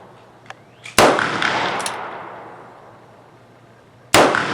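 Two revolver shots from a Ruger Vaquero single-action revolver firing 250-grain .45 Colt cartridges, about three seconds apart. Each shot is sharp and followed by a long echoing decay, and a faint click comes just before the first.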